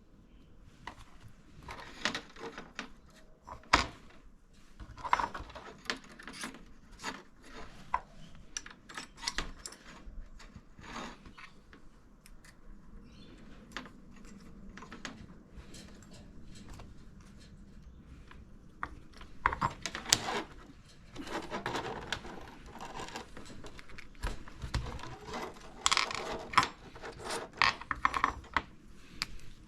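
Hands working with small hard parts and tools on a workbench: irregular clicks, knocks and rubbing, with the busiest handling about two-thirds of the way through.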